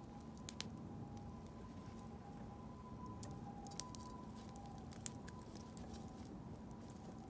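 Wood fire crackling, with irregular pops and snaps over a low steady rush; one sharper pop comes about half a second in.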